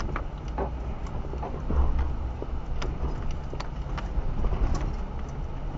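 Off-road vehicle's engine running low and steady as it crawls slowly over a rocky trail, heard from inside the cabin, with scattered clicks and knocks from stones and the bouncing body.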